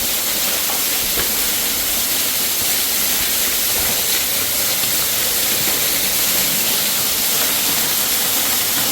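Underground waterfall in a mine working: a steady rushing hiss of falling water.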